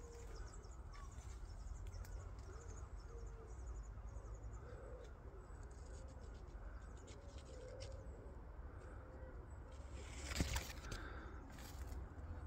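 Quiet woodland with faint birdsong, light rustling and crunching of footsteps through undergrowth, and a low wind rumble on the microphone. A sharper snap or brush of vegetation comes about ten seconds in, with another just after.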